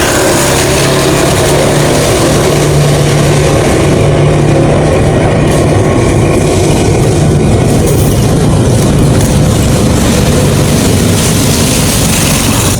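A heavy engine running steadily with a low hum under a loud, even rush of noise.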